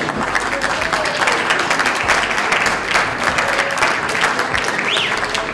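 Audience applauding steadily as the performers finish their bow, with a short rising call from the crowd near the end.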